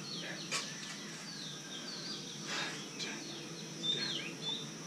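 Small birds chirping in short, quick calls over a steady high insect buzz, with three short sharp sounds.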